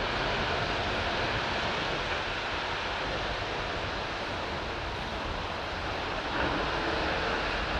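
Neoplan Tourliner coach's diesel engine as it pulls away, blended with a steady rush of city traffic on the wet street.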